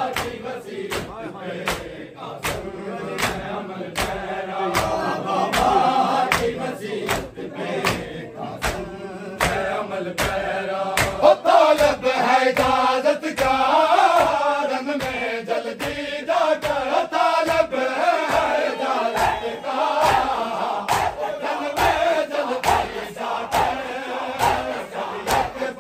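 A crowd of mourners beating their chests in matam, the bare-hand slaps landing together in a steady rhythm of about one and a half strikes a second. Massed men's voices chant over the beat, strongest from about eleven seconds in.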